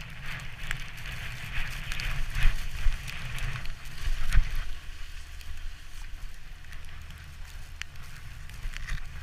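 Wooden sledge runners hissing and scraping over snow at speed, over a low rumble of wind on the microphone, with scattered small knocks and two louder jolts as the sledge hits bumps about two and a half and four seconds in.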